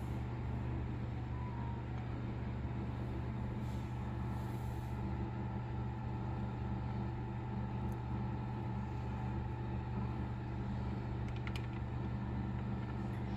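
Steady low hum with evenly spaced low tones that do not change, and a few faint light ticks near the end.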